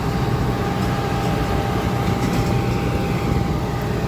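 Steady rumble of a moving vehicle heard from on board, with a thin steady whine over it.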